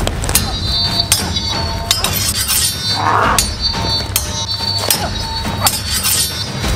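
Steel longswords clashing again and again in a sword fight, each strike ringing, over a low, steady music bed.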